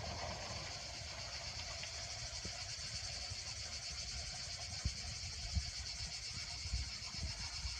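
Cicadas buzzing in a steady, even chorus, with a low rumble underneath.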